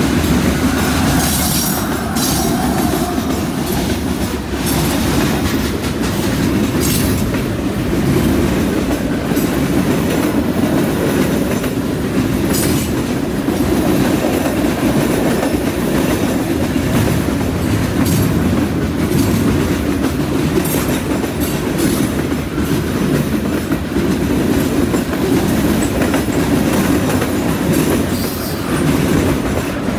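Long diesel freight train rolling past close by: a steady heavy rumble and clatter of loaded freight cars' wheels on the rails, with the mid-train diesel locomotive going by at the start. Brief high-pitched wheel squeals cut through a few times.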